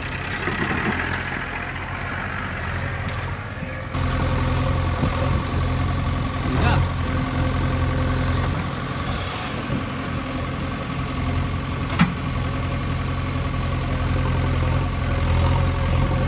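Diesel farm tractor engines running steadily, heard across several cuts. There is a single sharp knock about twelve seconds in.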